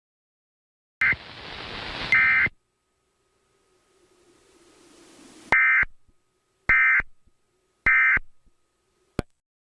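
Emergency Alert System end-of-message data tones: three short warbling digital bursts about a second apart. Before them come a swelling hiss and two similar short bursts, and a sharp click sounds near the end.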